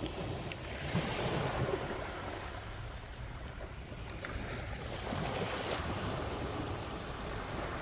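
Surf washing onto the beach, a steady rush that swells and eases, with wind buffeting the microphone.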